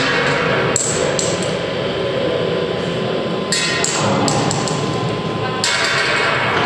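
A few sharp knocks in irregular clusters, over a steady background din.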